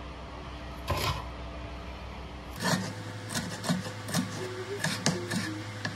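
Kitchen knife chopping a green pepper on a cutting board: one knock about a second in, then from about halfway a run of sharp knife taps on the board, two or three a second.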